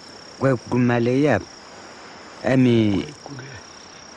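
A man speaking in the Sambia language in short phrases with pauses, over a steady high-pitched drone of insects.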